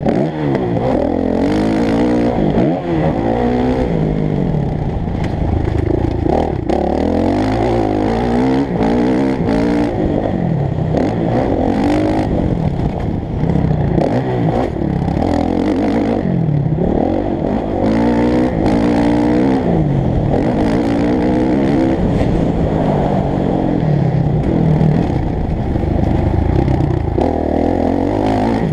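Motocross bike engine heard from the bike itself, muffled, revving up and falling back again and again as it is ridden around a dirt track, with clatter from the bike.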